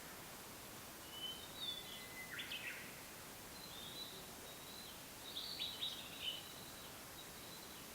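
Blue-and-white flycatcher singing: two phrases of clear whistled notes, one about a second and a half in and one about five and a half seconds in, each ending in a short cluster of rougher notes, over a steady background hiss.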